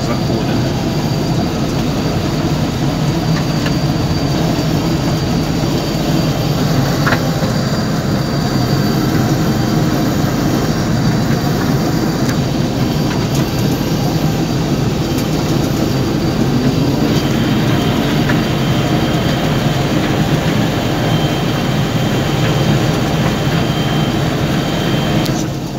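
John Deere 1550 WTS combine harvester running steadily under load while cutting and threshing barley, heard from inside the cab: a dense engine and machinery drone, with the threshing drum turning at about 800 rpm. A faint high whine joins about two-thirds of the way through.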